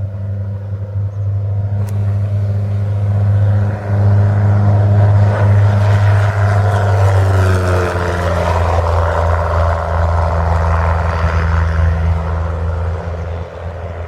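American Champion 7GCBC Citabria single-engine propeller plane running at high power as it flies past. The engine hum grows louder about four seconds in, drops in pitch as the plane goes by around seven to eight seconds in, and then eases off a little.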